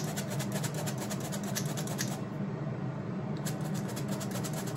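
Flour being sifted through a metal sieve: rapid, rhythmic rubbing and scraping strokes that pause for about a second in the middle. Beneath it, the HYSapientia 24 L air fryer oven's fan hums steadily.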